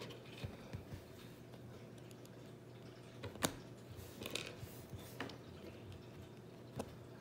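Small plastic Lego pieces clicking and tapping as they are picked up and handled on a tabletop: a few scattered light clicks, the sharpest about three and a half seconds in.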